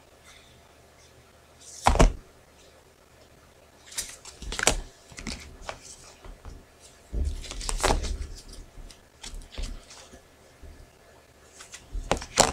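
Angel oracle cards being handled on a cloth-covered table: scattered taps, clicks and brief rustles, with a longer rustle about seven seconds in.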